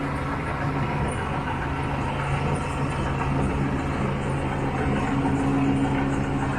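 Diesel engine of road-building machinery running steadily with an even low hum.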